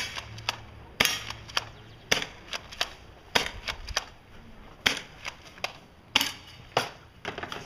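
Airsoft replica firing single shots at an uneven pace, about a dozen sharp cracks over some seven seconds, the loudest right at the start, about a second in and about six seconds in.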